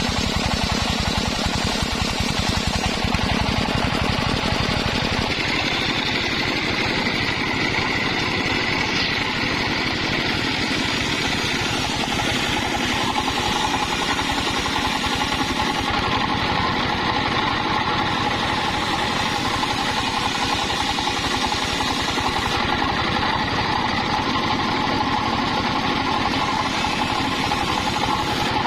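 Engine-driven homemade circular saw running steadily while sawing waru (sea hibiscus) wood: a fast engine pulse under the whine of the blade, which shifts in pitch a couple of times as it works through the cut.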